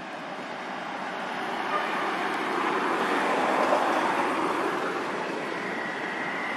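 A road vehicle passing by: a noise of tyres and engine that swells to its loudest about three and a half seconds in, then fades.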